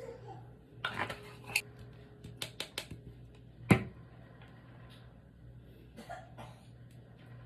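A quick run of sharp clicks and light knocks, like objects being handled, with one louder knock just under four seconds in and a few fainter ones later.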